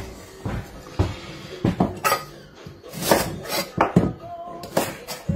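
Large kitchen knife cutting parsnips on a wooden chopping board: a run of irregular knocks as the blade strikes the board, with some handling clatter.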